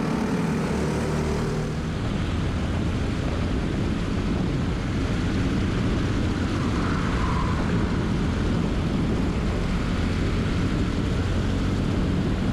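Briggs & Stratton LO206 four-stroke single-cylinder kart engine running at speed, heard from on board the kart, with wind noise over the microphone.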